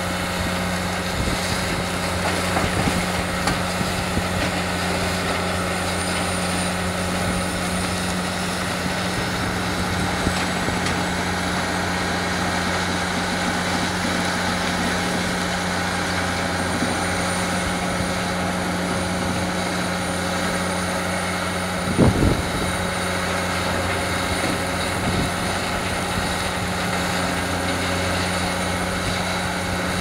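Sandvik QJ341 mobile jaw crushing plant running with a steady diesel drone, a Hitachi ZX350 excavator working beside it. A single loud knock, like rock striking steel, comes about two-thirds of the way through.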